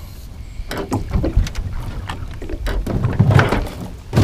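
Knocks and clatter of a pole and rope being handled on a boat's bow as the pole is pushed into the water, louder about three seconds in, over a low wind rumble on the microphone.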